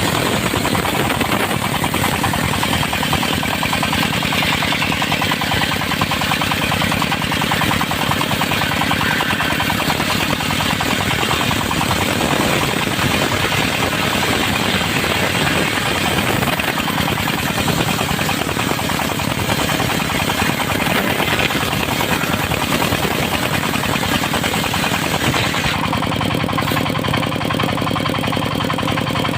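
A circular-saw sawmill running under power, its engine chugging steadily with a rapid knock while the blade cuts teak with a high hiss. The hiss drops away about 26 seconds in, leaving the engine and blade running.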